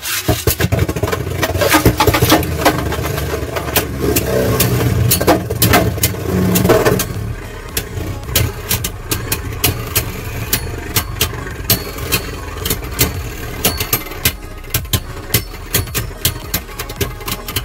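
Two Beyblade Burst spinning tops whirring on a plastic stadium floor, clacking sharply against each other many times. The clashes come more often in the second half.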